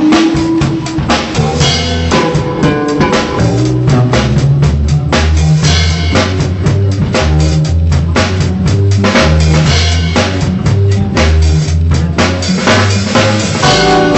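Loud music with a drum kit keeping a steady beat over a bass line and other pitched instruments.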